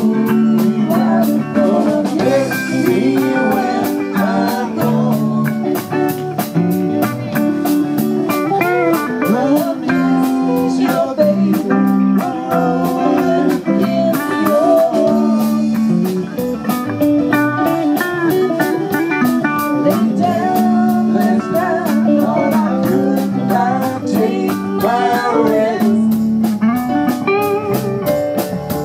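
Live rock band playing an instrumental jam: electric guitar lines with bending notes over bass and a drum kit keeping a steady cymbal beat.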